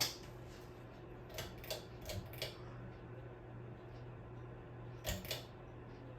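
Ceiling fan running with a steady low hum. A few light clicks come in pairs and clusters, around two seconds in and again near the end.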